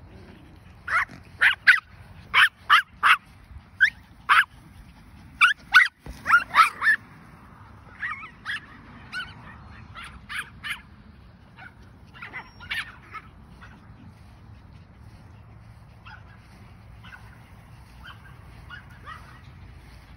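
Yorkshire terriers barking in short, sharp, high-pitched barks, a quick run of about fifteen in the first seven seconds. Fewer and fainter barks follow, and they die away in the last several seconds.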